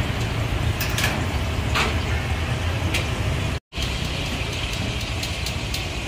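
Steady low rumble of street traffic and idling engines, with scattered sharp clicks and clinks of metal utensils and snail shells being handled. The sound cuts out for a moment about halfway through.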